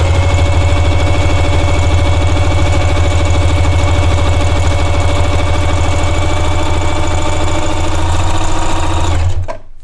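Necchi Q132A electric sewing machine running at a steady speed, sewing a decorative pattern stitch through eight layers of denim: a loud motor hum with the fast, even strokes of the needle. It stops near the end.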